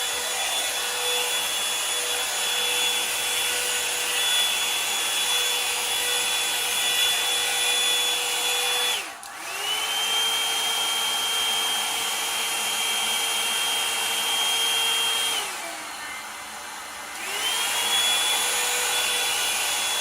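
Revlon One-Step Volumizer hot-air brush dryer running with a steady fan-motor whine. Its motor briefly dips almost to a stop about halfway through and spins back up. Near the end it slows to a lower, quieter hum for a second or two, then speeds up again.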